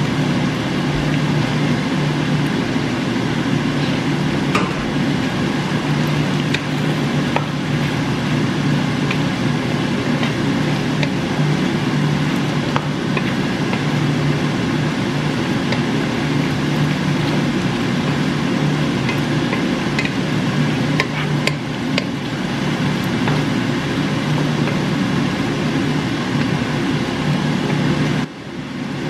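Creamy chicken and vegetable sauce bubbling and sizzling in a frying pan as mushrooms are stirred in, with a wooden spoon clicking and scraping against the pan. A steady low hum runs underneath.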